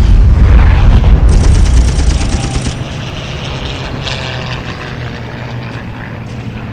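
Wartime air-raid sound effect: the loud low rumble of a bomb blast dies away over the first three seconds, leaving a quieter steady rumble and drone.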